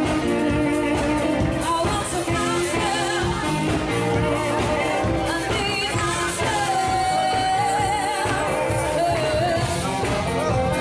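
Live band music with a singer; past the middle the voice holds one long note with vibrato.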